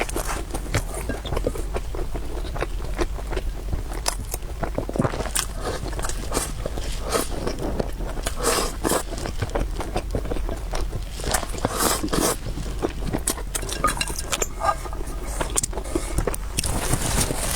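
Close-miked eating: a person chewing noodles and meatballs, a steady run of quick wet clicks and smacks.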